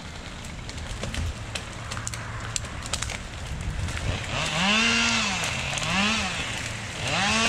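A low steady engine hum with scattered cracks and crackles, as a felled tree is winched down through brush. About four seconds in, a chainsaw starts revving up and down, rising and falling three times.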